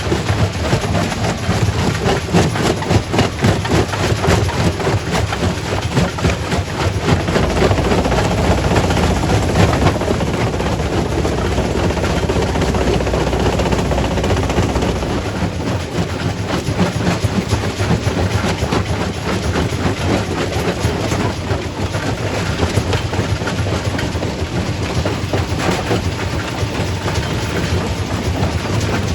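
Quarry primary rock crusher breaking stone: a heavy continuous rumble with a dense stream of irregular knocks and cracks of rock. The low rumble deepens for several seconds in the middle.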